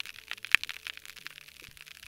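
Snapping shrimp living inside sponges, heard underwater: a dense, irregular crackle of sharp snaps, with one louder snap about half a second in. The snap, crackle, pop of a healthy sponge habitat.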